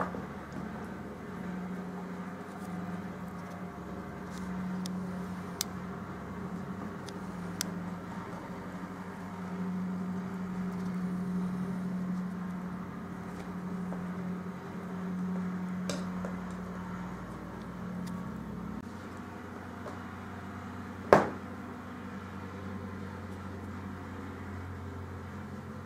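A steady low hum that drops to a deeper hum about nineteen seconds in, with one sharp knock a few seconds before the end.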